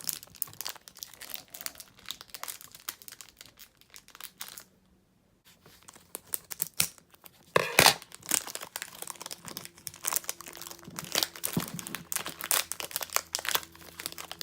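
Packaging of a new puzzle cube being unwrapped by hand: irregular crinkling and tearing. It stops for about a second around five seconds in, then resumes louder from about eight seconds on.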